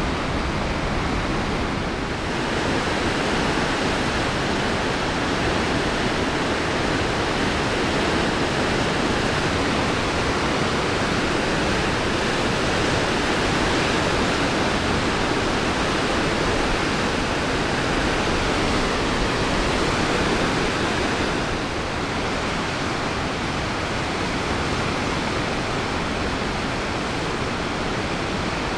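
Steady rush of whitewater rapids on the St. Louis River, running high and fast over rock ledges.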